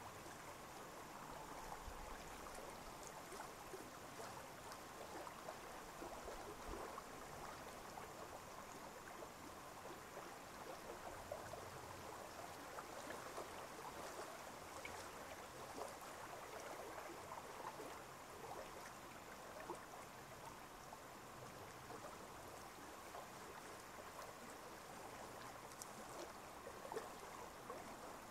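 Faint moving water: a steady soft hiss dotted with many small splashy ticks, with no single event standing out.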